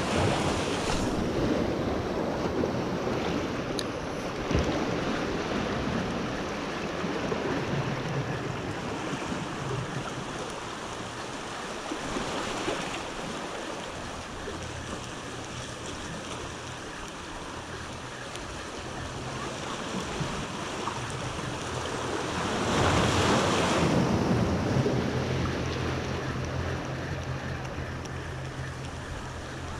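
Ocean surf washing and breaking over the rocks of a jetty, with wind buffeting the microphone. The wash swells and fades, loudest with one wave surge about three quarters of the way through.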